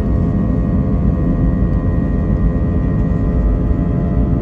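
Jet airliner's turbofan engine running, heard from inside the cabin beside the wing: a steady low roar with several steady whining tones over it.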